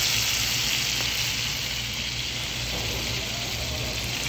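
Capers sizzling in browned butter in a frying pan: a steady hiss.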